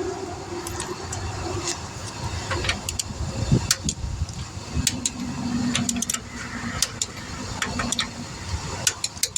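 Interstate traffic running past, with a steady hum that swells twice as vehicles go by, and many scattered sharp clicks and knocks on top.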